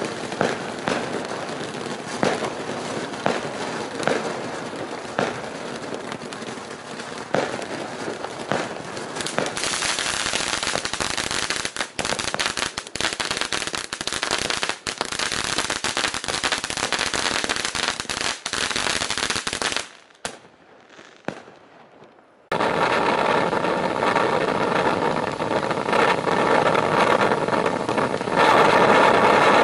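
Kimbolton Hi 5 battery of fountains spraying with a steady hiss and pops about once a second, turning to louder, dense crackling from about ten seconds in, then dying out about twenty seconds in. After a brief lull, a second fountain, Kimbolton Midnight Amethyst, starts spraying with a steady hiss.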